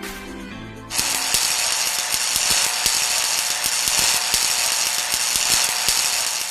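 Handheld MAXWELD fiber laser welder at work: a steady hiss thick with sharp crackling ticks that starts abruptly about a second in, as background music ends.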